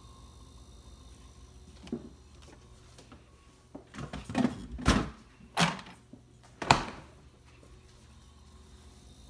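An LG refrigerator running with a steady low hum, the compressor noise that an LG technician proposes to cure by replacing the compressor. Over it come a series of thuds and knocks: one small knock about two seconds in, then several loud ones clustered in the middle.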